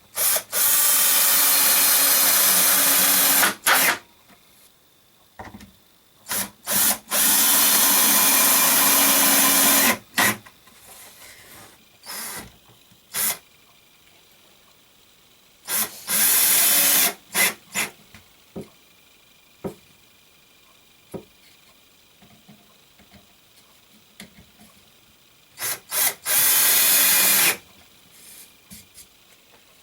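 Power drill working wood in four runs of a few seconds each, with short blips of the trigger between them and quiet pauses.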